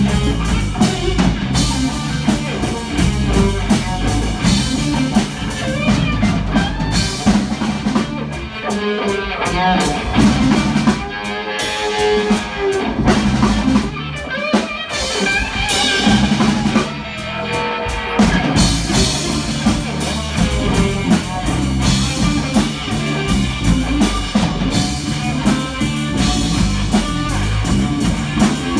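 Live rock band playing, with guitar and drum kit. Around the middle the low end drops away for a few seconds and a wavering, sustained lead line stands out before the full band comes back in.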